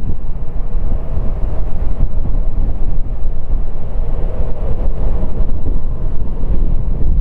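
Boeing 777-300ER's two GE90-115B turbofans at takeoff thrust as the airliner climbs away after departure: a loud, steady, low rumble.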